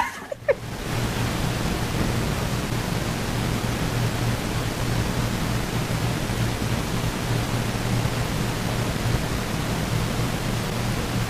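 Steady hiss with a low hum underneath, with no distinct events.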